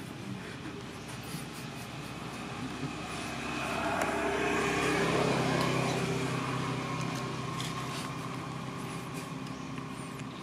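A motor vehicle passing by: its engine hum grows louder over a few seconds, peaks about halfway through, then fades away.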